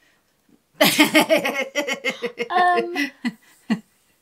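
Laughter in short choppy bursts, starting about a second in and dying away after about three seconds.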